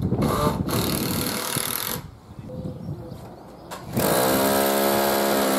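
Electric drill working at a timber wall plate, in two bursts: a rough, noisy run over the first two seconds, then about four seconds in the motor spins up with a quick rise in pitch and runs at a steady whine.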